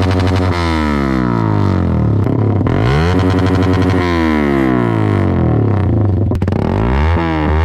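Electronic background music: steady held bass notes under repeated sweeping synth effects.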